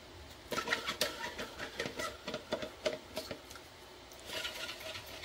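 Nested rings of a large 3D-printed PLA fidget being turned by hand: a run of irregular light clicks and knocks of plastic on plastic, then a brief rubbing sound near the end.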